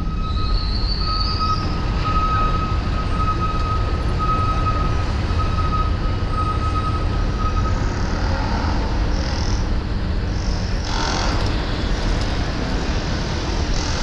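Wind rumbling on a moving camera's microphone while riding along a paved path, with a thin steady tone in the first half that fades out about eight seconds in.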